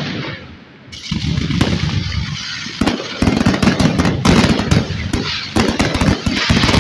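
Aerial fireworks bursting in a rapid barrage of bangs and crackling. A single bang fades, then from about a second in the shots come thick and fast, growing louder about three seconds in.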